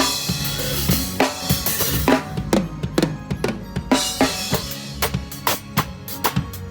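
Drum kit played through a PA during a sound check: rapid bass drum and snare hits with cymbal crashes, the crash ringing out in the first second, over sustained low bass notes.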